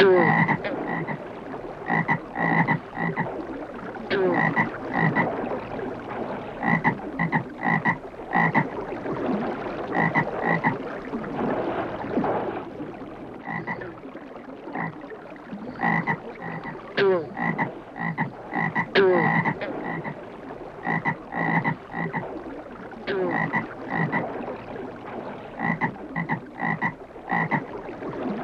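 A chorus of frogs croaking, many short calls overlapping and repeating in quick bursts, with a few calls that slide down in pitch, over a steady background hiss.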